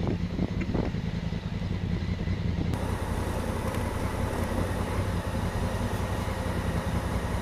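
Honda Africa Twin parallel-twin motorcycle engine running steadily at low speed, carrying two riders. A hiss comes in suddenly about three seconds in.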